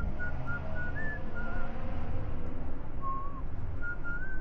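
A person whistling a wavering tune in short phrases, some notes gliding up, over a steady low background rumble.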